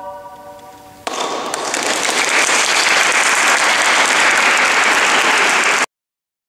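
The last of a choir's final chord dies away in the hall's reverberation, then audience applause breaks out about a second in and runs steadily until it cuts off abruptly near the end.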